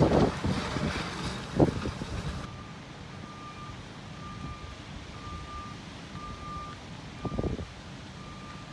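Vehicle reversing alarm beeping steadily, about one short beep a second, over a low rumble. It starts about two and a half seconds in, after a few loud bumps and rustles, and there is one more bump near the end.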